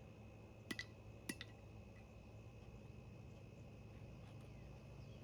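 Near silence, with four faint clicks a little under a second in.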